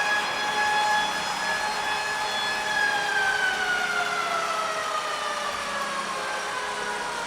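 Hockey arena goal horn sounding after a goal, held on one steady pitch for about three seconds and then sagging gradually lower in pitch as it winds down.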